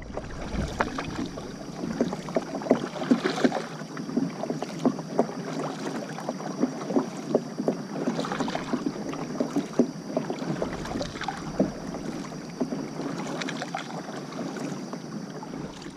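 Kayak paddle strokes dipping into and splashing the water, with drips and water sloshing along the hull in an irregular rhythm.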